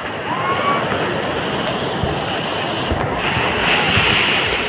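Sea surf breaking and washing up the sand, with wind buffeting the microphone. The wash of a wave swells louder about three seconds in.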